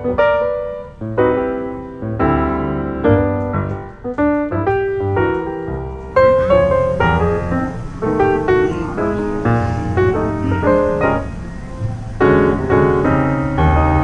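Background piano music: a slow run of struck notes that ring and fade. It grows fuller from about six seconds in.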